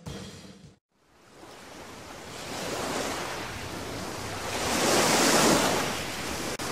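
Sea surf washing in, an even hiss of waves that builds up after a brief silence about a second in and swells to a peak past the middle before easing back near the end.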